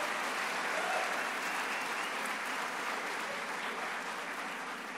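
Audience applauding: a dense, steady clapping that slowly dies down.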